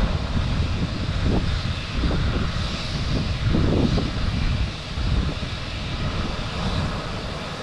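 A helicopter running at a distance, heard as a steady engine and rotor noise, with irregular low rumbling from wind on the microphone.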